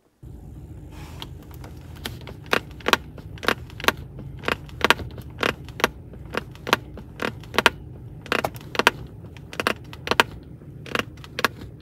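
Toyota Camry Hybrid's front center armrest clicking and creaking as it is leaned on: sharp plastic clicks about two to three a second, uneven, starting about a second in, over a steady low hum. The owner traces it to the armrest's top pad and blames loose plastic parts that wobble and rattle.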